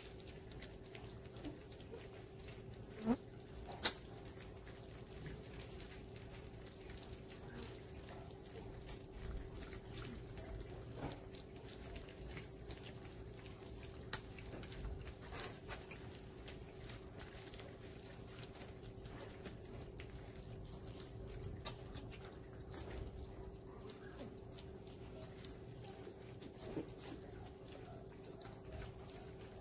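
Golden retriever puppies eating soft food from steel pans: busy lapping and chewing with many small clicks and taps, over a steady low hum. Two short, louder sounds stand out about three and four seconds in.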